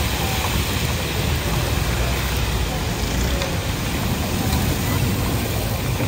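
Masala-coated fish deep-frying in a large karahi of hot oil: a steady sizzle of bubbling oil over a low, steady rumble.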